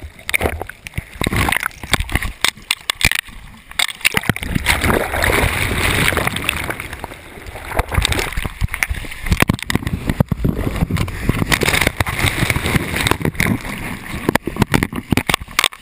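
Breaking surf churning around a capsized sea kayak: water gurgling, sloshing and splashing against the camera, broken by many irregular knocks as the boat is tumbled and rolled.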